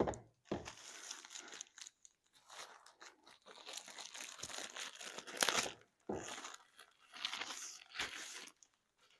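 Plastic packaging of a diamond painting kit crinkling and rustling as it is handled and opened, in irregular spells with short pauses, loudest about five and a half seconds in.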